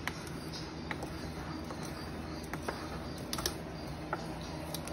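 A plastic spatula stirring a dry seasoning mix in a bowl, giving scattered light clicks and scrapes against the bowl, over a steady low hum.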